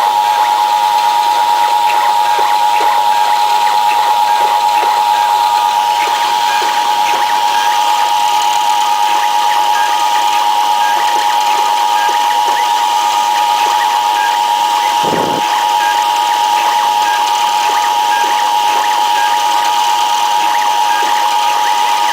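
Small CNC milling machine running while it mills a printed circuit board, with new stepper motors and drivers. It gives a steady, high-pitched whine with faint ticking over a hiss, and the whine dips briefly about fifteen seconds in.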